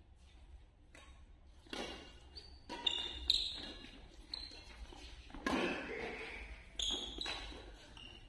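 Badminton rackets striking the shuttlecock in a doubles rally, about five sharp hits over several seconds, each ringing on in a large hall. Short high squeaks of court shoes on the hard floor come between the hits.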